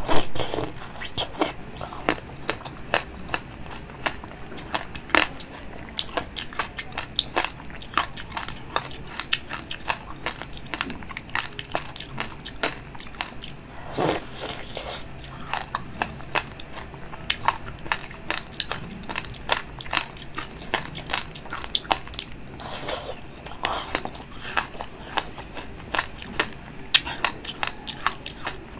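Close-up crunching and biting of frozen basil-seed ice balls: many sharp, irregular cracks and crunches as the ice breaks between the teeth, with chewing in between.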